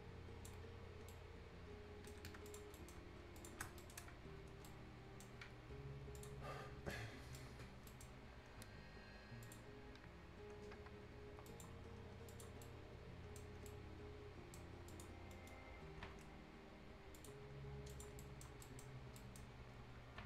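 Faint, irregular clicking of a computer mouse and keyboard, with quiet background music, and a louder brief noise about seven seconds in.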